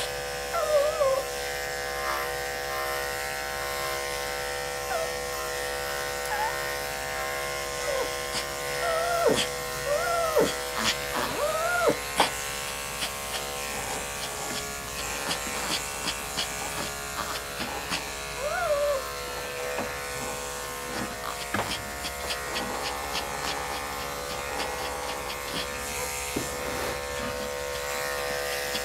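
Corded electric dog clipper running steadily, a constant motor buzz as it shears a Maltese's coat. Over the first two-thirds, a few short high rising-and-falling whines from the dog.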